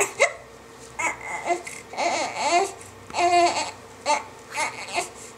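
Baby fussing while squirming: a string of short whimpering cries and squeals, the longest and loudest a little past the middle.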